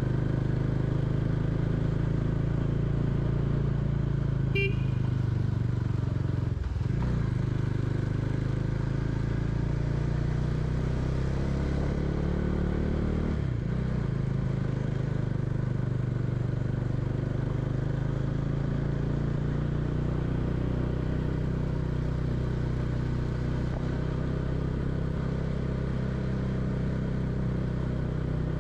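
Bajaj Dominar 400's single-cylinder engine running steadily under way. The engine note dips briefly and recovers twice, about seven and thirteen and a half seconds in. There is a short high-pitched tone about four and a half seconds in.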